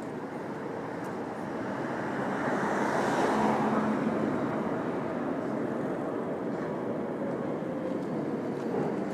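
Street traffic noise with a car driving past close by, its tyre noise swelling to a peak about three to four seconds in and then fading back into steady city traffic.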